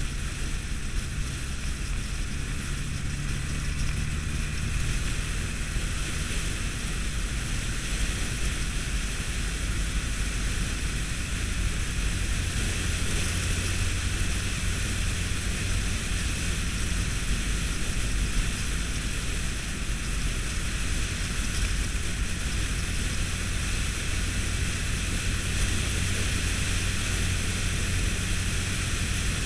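Steady rush of wind over a motorcycle-mounted camera's microphone at motorway speed, with the low, even drone of a Honda ST1300 Pan European's V4 engine running underneath.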